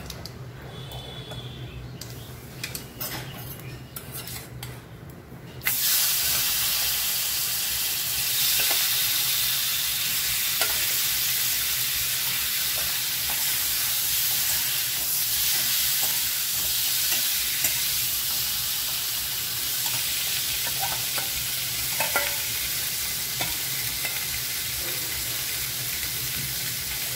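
Boiled potato pieces frying in hot oil in a metal kadai. After a few light clicks, a loud sizzle starts suddenly about six seconds in as the potatoes go into the oil, and it holds steady while a metal spatula stirs, knocking lightly now and then against the pan.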